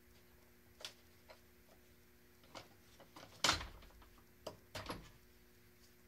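Hard plastic HVAC air box parts being handled: scattered clicks and knocks, the loudest about three and a half seconds in and a couple more near five seconds.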